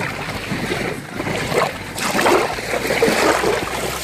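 Choppy lake water splashing and lapping in the shallows around a person wading beside a canoe, with wind rumbling on the microphone.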